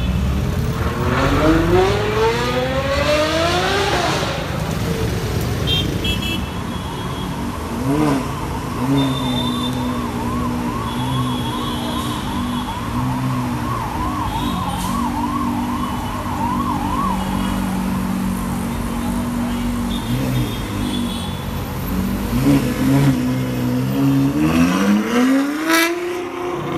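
Ferrari 812 Superfast's 6.5-litre V12 revving up hard in a rising sweep at the start, then running at a steady drone with small rises and falls, and sweeping up again near the end as it pulls away. A warbling siren sounds over the engine for several seconds in the middle.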